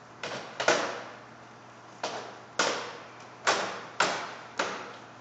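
A series of sharp knocks or clacks, about eight in all and unevenly spaced, each dying away quickly as it echoes, over a faint steady low hum.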